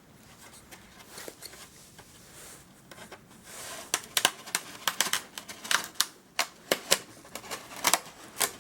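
Faint handling rustle, then from about four seconds in a quick irregular series of sharp clicks and small snaps as the failed glue joints of the model's broken wingtip are worked apart.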